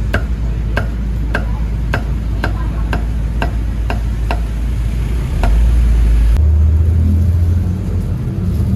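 Meat cleaver chopping grilled chicken on a wooden chopping block, about two chops a second, stopping about four and a half seconds in. A low rumble of road traffic runs underneath and grows louder after the chopping stops.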